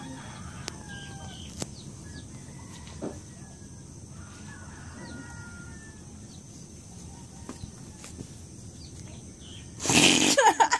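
Chickens clucking faintly in the background, with a few light clicks. Near the end, a loud, short rustle of handling noise on the microphone.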